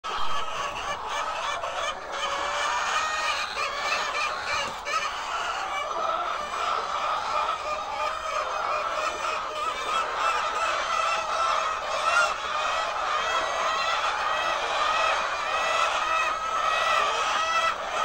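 A large flock of white laying hens calling all at once: a steady, dense chorus of many overlapping clucks and calls with no pauses.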